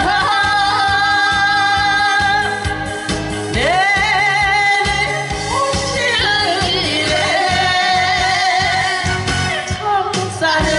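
A woman singing a Korean song into a microphone over an amplified backing track with a steady beat, holding long notes with a wide vibrato.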